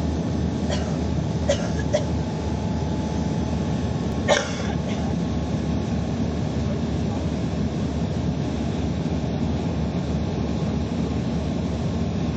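Steady low rumble of an aircraft coming in to land. A few brief sharp noises break through in the first few seconds, the loudest about four seconds in.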